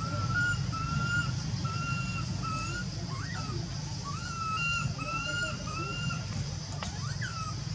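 A series of short, whistle-like animal calls, about two a second, in two bouts with a brief pause between, over a steady low rumble.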